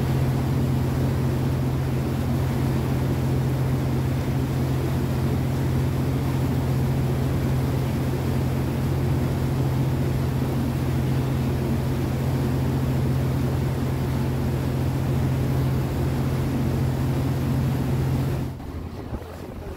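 Passenger ferry's engine running steadily, a loud low hum with a fast even pulsing beneath it, over wind and water noise. It stops suddenly near the end.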